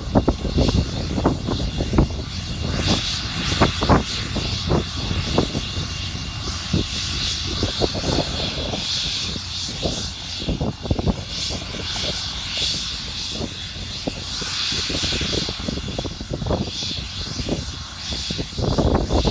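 Helicopter standing on the ground with its twin turbine engines running: a steady high whine over a constant low rumble, broken by irregular low thuds.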